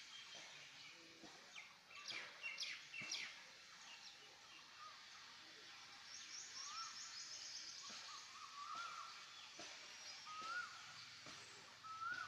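Birds chirping over faint outdoor background noise. There is a burst of quick high chirps about two seconds in, a fast high trill around six seconds, and then short rising-and-falling calls repeating every second or two.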